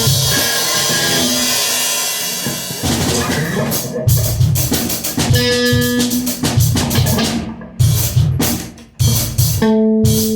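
Rock band rehearsal with guitar and drum kit playing together. Cymbals ring for the first couple of seconds, then the kick and snare hit in separate accents with short breaks between them, and after a brief drop near the end the guitar comes back in with held notes.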